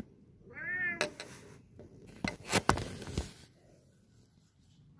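A domestic cat meowing once, a short arched call about half a second in, as a cat left outside asking to be let in. It is followed by a series of knocks and bumps, the loudest about two and a half seconds in.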